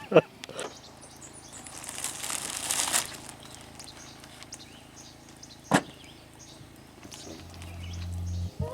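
A rushing whoosh that builds for about a second and cuts off, then a single sharp click; a low hum swells near the end.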